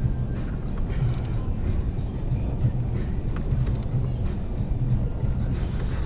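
A steady low rumble with a few light clicks from parts being handled, in small clusters about a second in and again past the middle.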